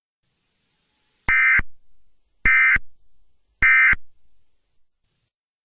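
Three short bursts of Emergency Alert System digital data tones, about a second apart: the end-of-message code that closes an alert broadcast.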